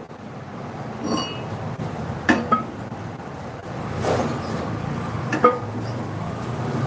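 Metal clinks and knocks from a truck's brake drum being worked loose by hand on its wheel studs, a handful of sharp taps with the first ringing briefly. The drum is stubborn to remove.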